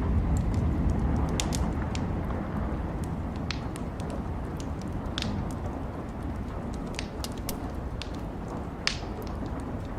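Wood fire crackling, with sharp pops at irregular intervals, one louder pop near the end, over a low rumble that eases during the first few seconds.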